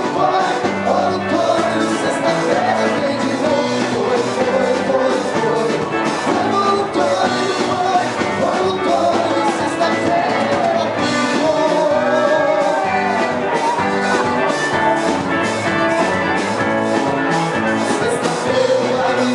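Background music with singing and a steady beat, in a rock style.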